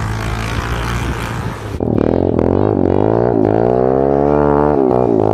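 A steady rushing noise over a low hum, then about two seconds in a sudden cut to a 2004 Suzuki DRZ110 pit bike's small single-cylinder four-stroke engine, loud and revving up and down.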